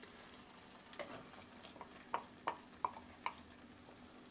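Thick cooked toor dal scraped from a glass bowl into a kadai: a soft plop about a second in, then four sharp clicks a few tenths of a second apart as the bowl and wooden spatula knock together. Under it is a faint sizzle from the pan.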